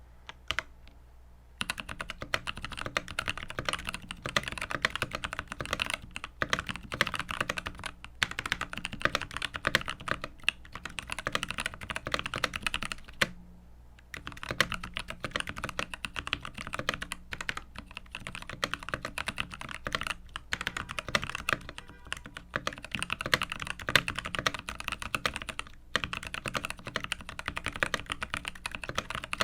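Mechanical keyboard with Lychee tactile switches being typed on: a couple of single key clicks, then continuous fast typing with a few short pauses. The switches sound fairly muted.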